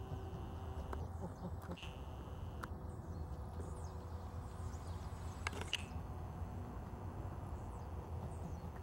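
Low wind rumble on the microphone with a steady high insect trill that breaks off and resumes, and a few short bird chirps. Under these is the faint steady hum of a twin electric-motor radio-controlled plane flying far overhead.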